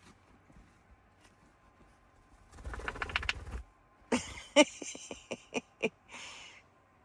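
Pet budgerigars fluttering and calling: a second-long flurry of rapid wing beats, then a string of about eight short, sharp calls and one longer call near the end.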